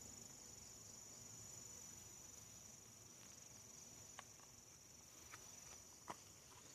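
Faint, steady high-pitched insect trill, with three faint clicks in the second half.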